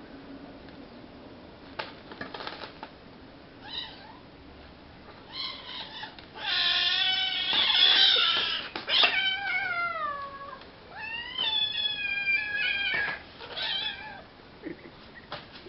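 Cat yowling in a series of drawn-out meows, the loudest and longest about six to nine seconds in, the later calls sliding down in pitch. A few short knocks sound near the start and about nine seconds in.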